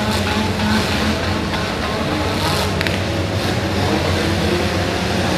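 Several four-cylinder demolition derby cars' engines running hard together, revving, with a brief clatter about three seconds in.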